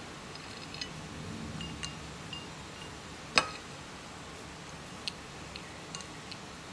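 Nuts and dried fruit set one at a time into a ceramic bowl, each landing with a small clink. The clinks are scattered and irregular, and the sharpest comes about halfway through.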